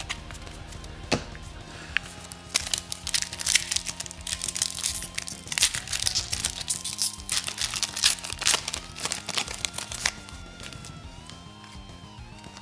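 Foil wrapper of a Donruss basketball card pack torn open and crinkled by hand: a dense run of crackles starting about two seconds in and stopping about ten seconds in. Steady background music plays underneath.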